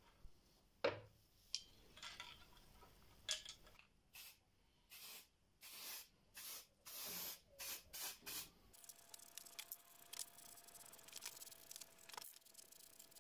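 Aerosol spray-paint can hissing in a series of short bursts, about nine in four seconds, as green paint is sprayed onto a wooden box, after a few knocks near the start.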